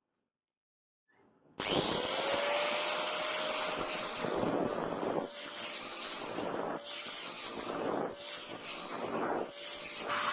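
Electric grinder spinning up about a second and a half in, then running steadily, its sound swelling and easing about once a second as the steel blade is pressed against it in repeated passes.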